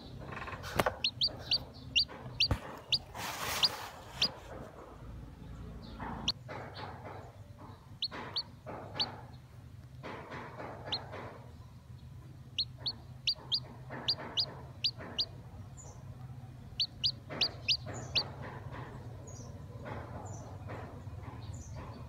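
Chicken chick peeping while it hatches from a cracked egg: runs of short, high peeps, three or four a second, recurring every few seconds.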